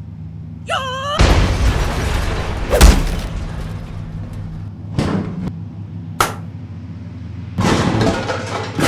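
A series of heavy thuds and crashing bursts of noise, the loudest about three seconds in, with shorter hits near the middle and a longer crash near the end. The crashes are preceded by a brief warbling, whistle-like tone and run over a low steady hum.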